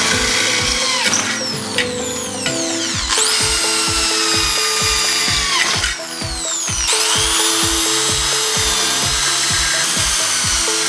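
Corded electric drill boring holes through a steel channel with a twist bit, its motor whine rising as it spins up about three and seven seconds in and falling as it winds down between holes. Background music with a steady beat plays throughout.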